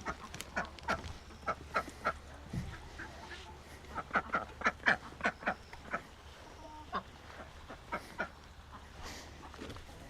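Ducks quacking in a run of short, sharp calls, coming thickest about four to five and a half seconds in.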